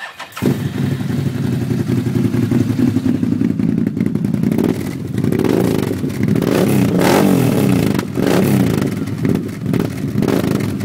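Can-Am Outlander 800 Max ATV's V-twin engine, fitted with an HMF Utility aftermarket exhaust, starting up and idling. From about four seconds in, the throttle is blipped several times, the pitch rising and falling with each rev.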